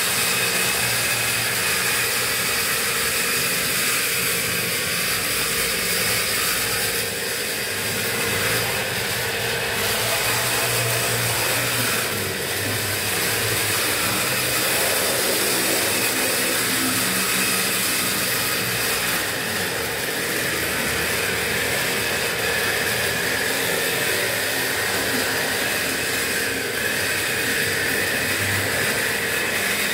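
Steady whirring of a model train's small electric motor and gearing with a hiss of running gear, heard up close.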